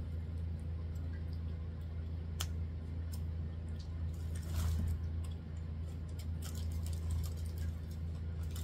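Aluminium foil being peeled open from around a corn cob: scattered crinkling and rustling, busier in the second half, over a steady low hum.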